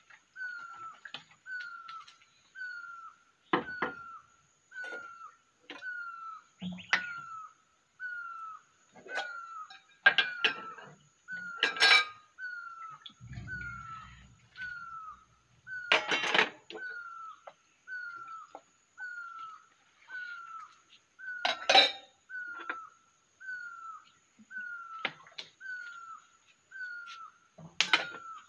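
Metal dishes and bowls clinking now and then as they are washed and set down, with a short splash of poured water midway. Behind them a bird repeats a single short, slightly falling note about once a second.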